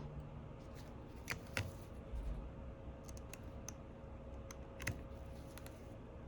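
Light, scattered clicks and taps of small repair tools against iPhone 12 internal parts, brackets and screws being handled and fitted during reassembly, over a faint steady hum.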